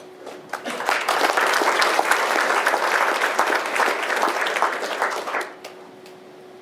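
Audience applauding the end of a talk. The applause swells in about half a second in and dies away after about five seconds.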